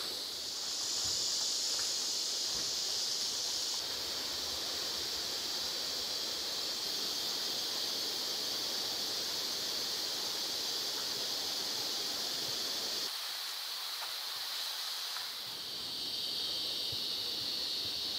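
Steady high-pitched chorus of insects droning without a break, its pitch and strength shifting abruptly a few times.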